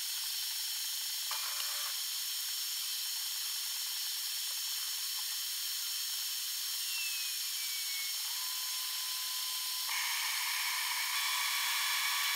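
CNC router's axis motors moving a diode laser head through an engraving, the audio sped up with the 20× time-lapse into a shrill, high-pitched machine whine with several steady tones. A tone slides slightly downward a little past the middle, and the sound grows a little louder for the last couple of seconds.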